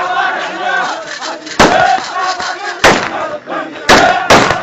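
Gunshots fired into the air, four loud cracks at uneven spacing, over a crowd of men shouting.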